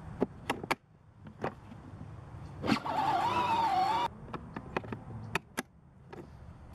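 Small electric motor of a plastic ride-on toy car whirring for about a second and a half, starting and stopping abruptly with a slightly wavering whine. Scattered clicks and taps come before and after it.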